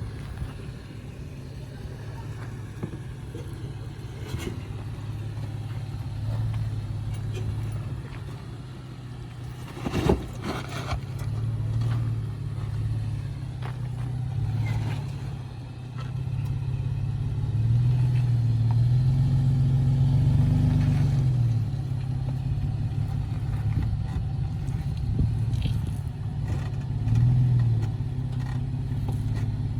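Off-road 4x4's engine running steadily at low speed, growing louder for a few seconds past the middle as it pulls harder. Occasional knocks and scrapes come through, the loudest a sharp knock about ten seconds in.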